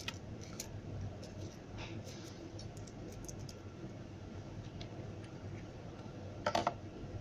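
Light clicks and taps of plastic phone parts, a handset's back frame and battery, being handled and set on a workbench, with a louder short clatter of several quick knocks near the end. A low steady hum runs underneath.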